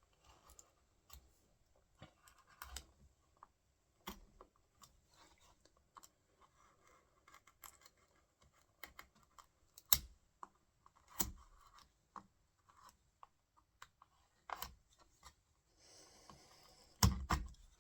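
Stanley knife blade scoring and scraping into the wood around a door-latch faceplate, faint and intermittent, with scattered sharp clicks and knocks, the loudest near the end.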